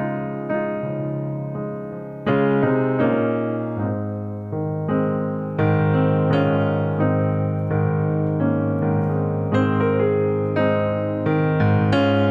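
Background piano music: notes and chords struck and left to ring, a new one every second or so.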